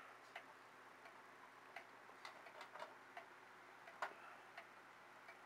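Faint ticking of an antique regulator wall clock's pendulum movement, running again after repair, with sharp ticks about one or two a second.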